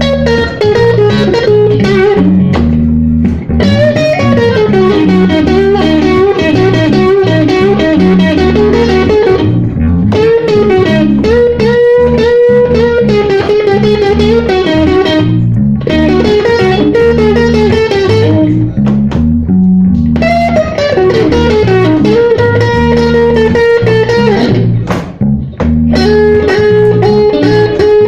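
Live blues band playing: a lead guitar line with bending, sliding notes over a repeating bass and chord accompaniment.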